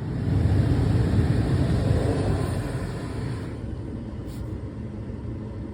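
Newly replaced HVAC blower fan of a Porsche 911 (997) running on full blast, a steady rush of air through the dash vents. It is strongest over the first few seconds, then drops to a lower steady level about three and a half seconds in.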